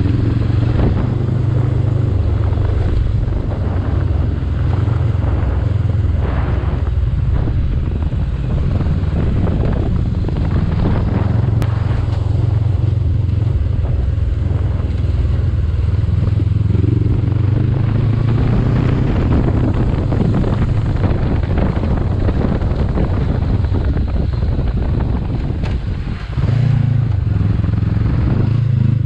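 A 2021 Honda CB500X's 471 cc parallel-twin engine running steadily as the motorcycle rides over a rough dirt track. Near the end it briefly drops, then comes back louder.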